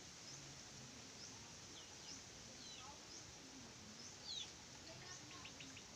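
Near-quiet room tone with faint small birds chirping in the background: short, high chirps and quick downward notes about once a second, a little louder about four seconds in.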